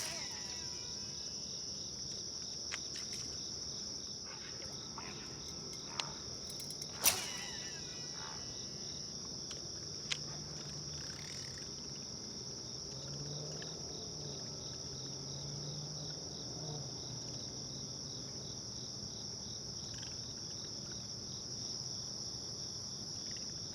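A steady, high-pitched chorus of night insects chirring without a break. A few short sharp clicks cut through it, the loudest about seven seconds in.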